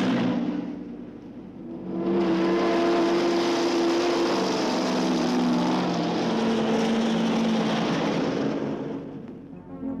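Army truck driving past with its engine running. The engine swells briefly, drops back, then runs loud and steady for several seconds, its pitch shifting a few times, before fading near the end.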